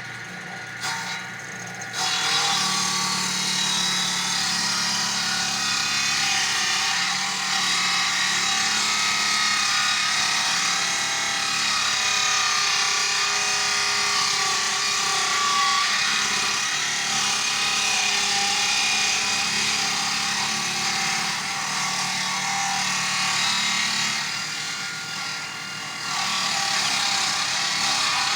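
Chainsaw running hard and cutting through wood, starting about two seconds in; it eases off briefly near the end, then picks up again.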